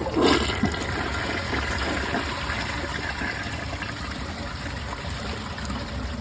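2018 Mansfield Summit dual-flush toilet flushing a plastic grocery bag. A sharp clunk at the start, then a steady rush of water through the bowl.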